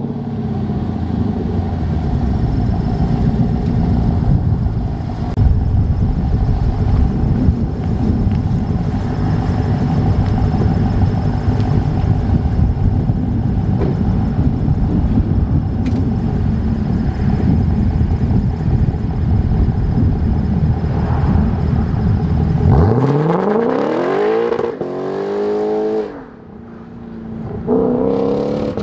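Lexus RC F's 5.0-litre V8 through a Fi Exhaust valvetronic catback, idling steadily. About 23 seconds in, it launches away with rising revs, dips briefly, then pulls hard again near the end.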